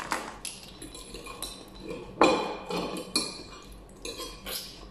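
Scattered clinks and clicks of eating at a table: a spoon against a plate and clam shells being handled and pried open by hand. The sharpest click comes about two seconds in.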